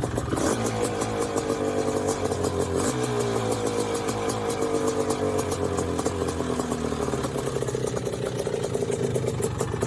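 Suzuki Quadrunner 500 ATV's single-cylinder engine running with a rapid, even firing beat; its pitch sinks slowly as the revs ease off.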